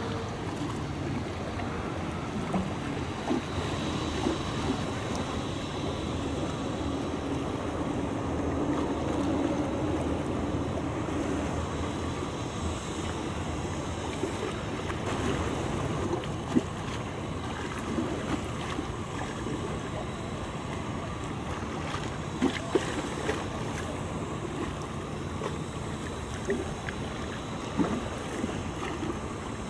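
Cruise ship Nippon Maru passing offshore: a steady rumble of water wash and engine, with wind noise on the microphone. A few sharp clicks come through in the second half.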